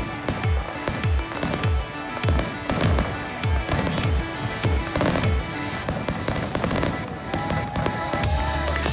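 Aerial fireworks bursting and crackling over music that has a steady beat of about two thumps a second.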